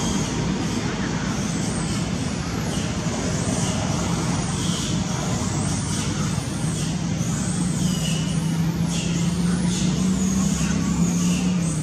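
A steady low motor hum over a continuous wash of outdoor noise. Short high rising-and-falling calls repeat throughout.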